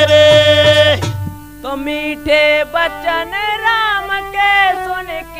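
Holi folk song music from a cassette recording: a loud held note with full accompaniment stops about a second in, leaving a quieter winding melody with pitch bends.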